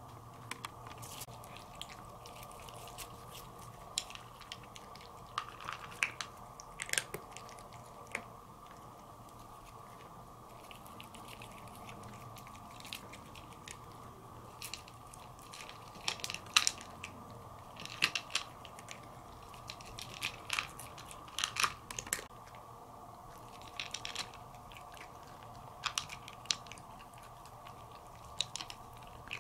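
A cat eating from a plate: irregular crunches and clicks as it bites and chews dry kibble, coming thickest in a run of quick bites past the middle.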